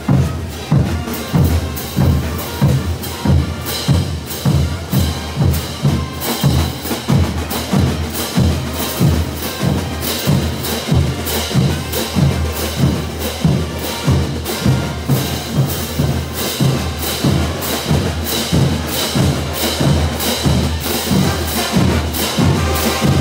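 Bolivian brass band marching and playing: a line of hand cymbals clashed together on the beat, about twice a second, over drums and brass.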